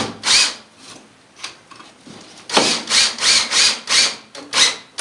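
Cordless drill driving a screw through drywall into a wooden 1x4 backing board. It gives one short burst at the start, then, after a pause of about two seconds, a quick run of short bursts, about three a second.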